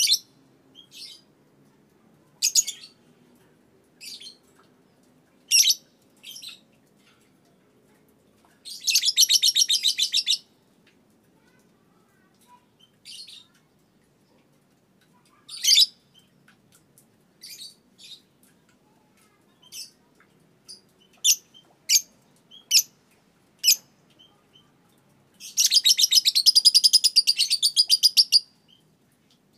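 Young Fischer's lovebird, about two and a half months old, singing: scattered short, sharp, high chirps and two long, rapid, chattering trills (ngekek). The first trill comes about nine seconds in and lasts under two seconds; the second comes near the end and lasts about three seconds.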